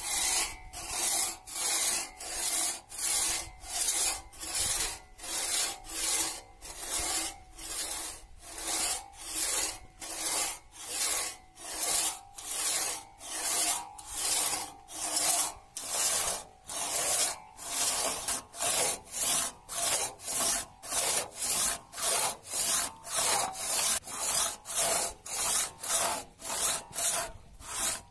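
Hand crosscut saw, a restored antique, cutting through a log, a steady rhythm of rasping strokes at about two a second, with a faint ringing tone underneath.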